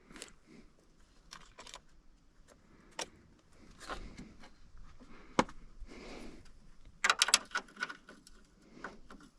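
Metal hand tools clinking and tapping while fitting tools to a stuck fastener. There are scattered sharp clicks, a single sharp knock about five seconds in, and a quick metallic rattle about seven seconds in.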